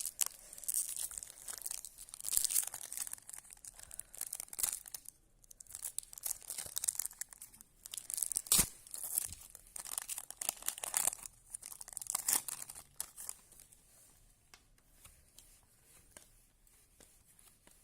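Trading card packet being torn open and its wrapper crinkled, in repeated rustling, ripping bursts that die down to faint rustles of cards being handled for the last few seconds.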